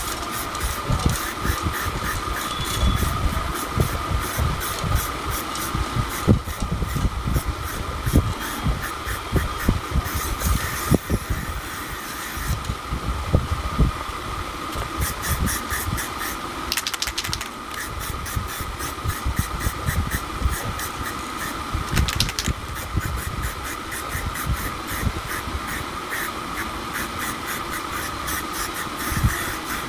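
Aerosol spray paint can with a trigger handle spraying a wheel rim in short repeated bursts of hiss, stopping for a couple of seconds about 13 seconds in. A steady mechanical hum and low bumps run underneath.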